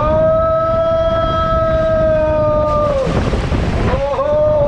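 A rider yelling one long, held 'aaah' that rises in pitch at the start and falls away about three seconds in, then a second, shorter yell near the end. Underneath is a steady low rush of water and wind noise on the microphone as the tube slides down the enclosed water slide.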